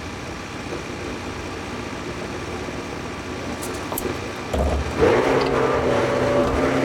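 John Deere 410 backhoe loader's diesel engine running steadily, then picking up and running louder and higher from about four and a half to five seconds in, as when the throttle is raised to work the hydraulics.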